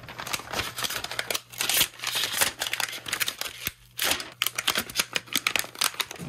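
A plastic film screen protector being destroyed by hand: a dense, irregular run of crackling and crinkling, stopping abruptly near the end.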